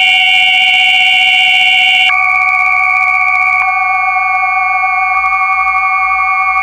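Electroacoustic tape music of sustained electronic tones: several steady pitches held together as one chord, with a hiss over the first two seconds. The chord changes abruptly about two seconds in, and there is a click a little after that.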